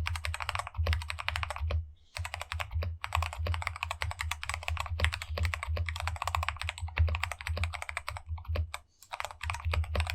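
Fast typing on a Ciy Tester68 mechanical keyboard fitted with stock, unlubricated Gateron Brown tactile switches: rapid runs of keystrokes, with short pauses about two seconds in and near the end.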